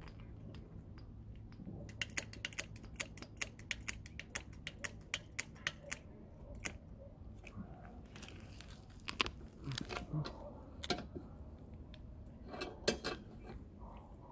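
Runs of quick metallic clicks, about four a second, then scattered knocks and clanks as a jack is worked and set under the car.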